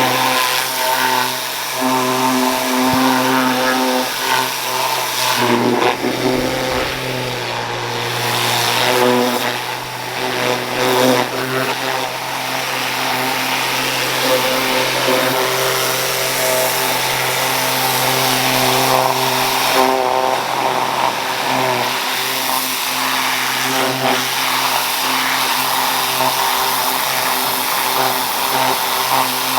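Pressure washer running steadily, its engine humming under the hiss of the water spray.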